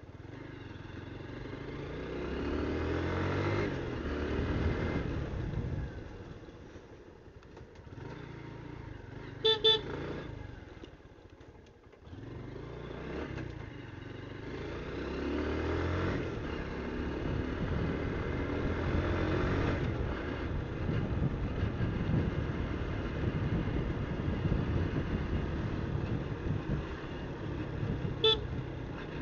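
TVS motorcycle engine running and revving up in several rising sweeps as the bike accelerates, easing off for a few seconds in the middle. A horn toots twice quickly about ten seconds in and once more near the end.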